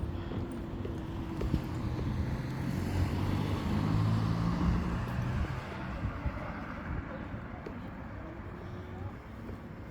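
A car passes on the road, its engine and tyre noise swelling to a peak about four seconds in and fading away, over the low rumble of wind buffeting the microphone.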